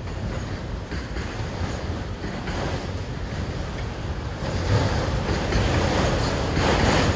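Freight train of empty autorack cars rolling past, steel wheels rumbling and clattering on the rails, growing louder about four and a half seconds in.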